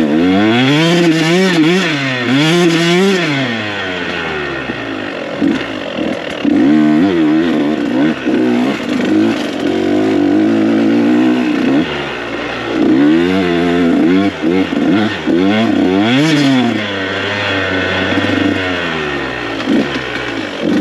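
KTM 125 SX two-stroke single-cylinder dirt bike engine riding a trail, its pitch climbing and dropping over and over as the throttle is opened and shut and it shifts through the gears.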